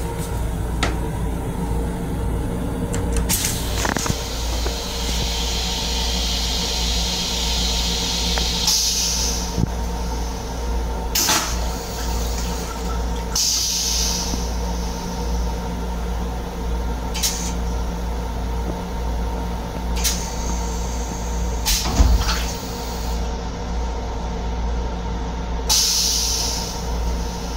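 Toilet in an M7 railcar restroom flushing: a hiss of water spraying into the stainless steel bowl for about six seconds, then shorter bursts of hissing. Under it runs the railcar's steady low hum, with scattered knocks.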